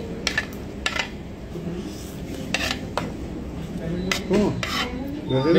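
A fork clinking and scraping against a plate of noodles: a scatter of sharp clicks over restaurant background chatter, with voices growing louder near the end.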